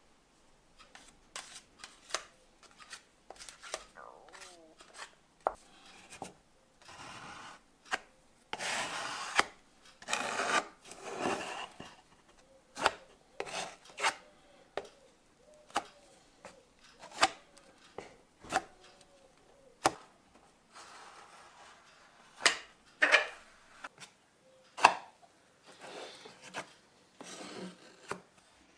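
Hand work on the parts of an old manual coffee grinder: scattered sharp clicks and knocks with spells of scraping and rubbing, the longest about a third of the way in.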